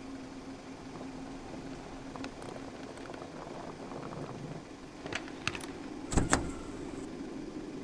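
Small hatchback car idling with a steady low hum, then a few light clicks and a sharp double clack about six seconds in as the rear door handle is pulled and the latch opens.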